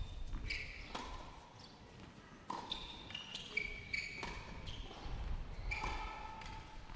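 Tennis rally on a hard court: a handful of sharp racket-on-ball hits and ball bounces about a second or more apart, with short high squeaks of tennis shoes on the court between them.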